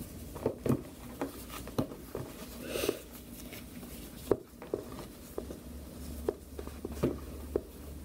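Hands handling and turning a pair of cotton boxer briefs, with soft fabric rustling and irregular light clicks and taps against a wooden tabletop.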